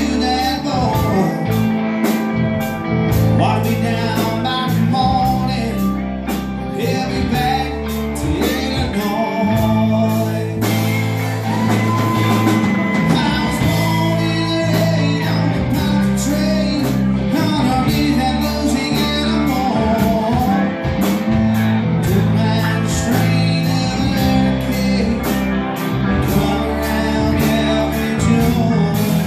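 Live rock band playing an instrumental stretch of a song: electric guitars and a drum kit, with melodic lead lines sliding over a steady beat.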